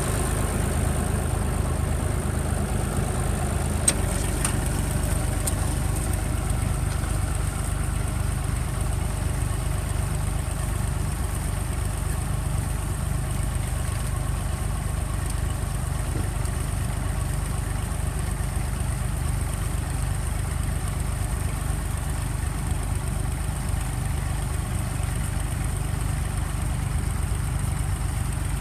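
Vintage tractor engine running steadily under load as it pulls a single-furrow plough through the soil.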